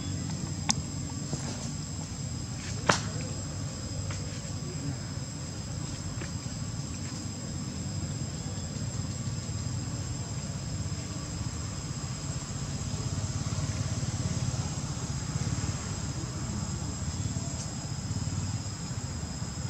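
A steady, high-pitched drone of insects, over a low rumble, with two sharp clicks in the first three seconds.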